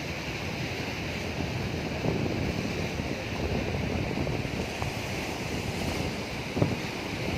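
Mediterranean sea waves washing in and swelling, with wind buffeting the microphone. A short knock sounds near the end.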